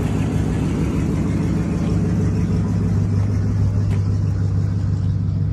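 A vehicle engine idling nearby: a steady low hum with no change in pitch or level.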